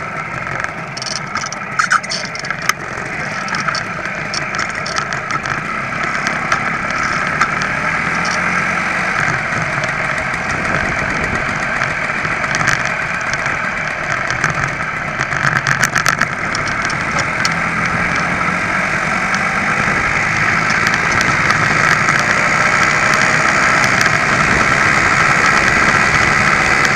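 The small two-stroke engine of an ABG (Velo) VAP moped running steadily under way, growing gradually louder as the ride goes on, with a few sharp clicks.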